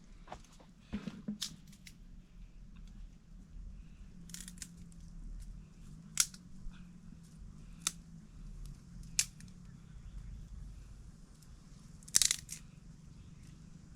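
Small wood fire crackling, with a few sharp pops spaced about one to three seconds apart, over a faint low steady hum.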